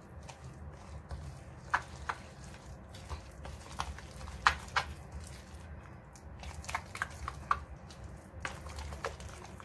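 Plastic spoon stirring a thick yogurt-and-spice marinade paste in a glass bowl: soft wet squelching with irregular light clicks as the spoon knocks against the glass.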